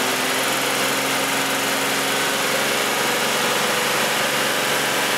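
2003 Chevy Impala's 3.4-litre V6 held at a steady raised speed of about 2,000 to 3,000 rpm in park. Its exhaust is restricted by a plugged catalytic converter, building about 4 psi of backpressure.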